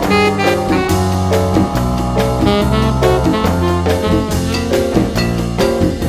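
Instrumental jazz music with a drum kit keeping a steady beat under melodic horn lines.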